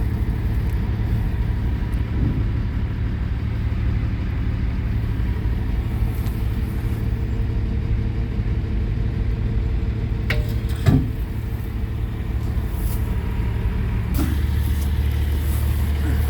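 A vehicle engine idling steadily, with two sharp knocks a little past the middle; a deeper low hum joins in near the end.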